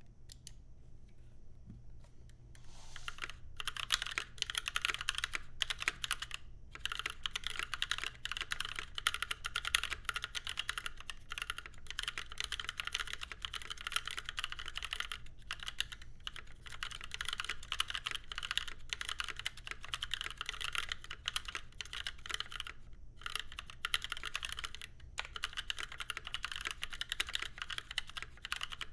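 Typing on a mechanical keyboard with stock NovelKeys Cream linear switches, a brass plate in an aluminium case and GMK keycaps: a fast, continuous run of keystrokes that starts about three seconds in, with a few short pauses.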